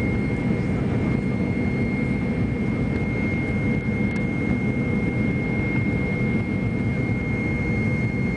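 Cabin noise of a jet airliner climbing after takeoff: a steady run of engine and airflow noise, with a thin high whine held over it.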